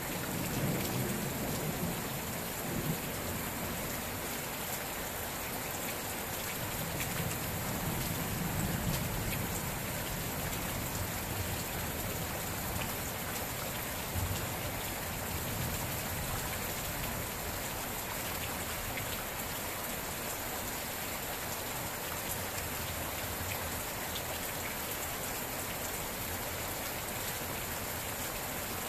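Steady rain falling, an even hiss of drops that does not let up. Low rumbles swell and fade about a second in and again around eight to ten seconds in.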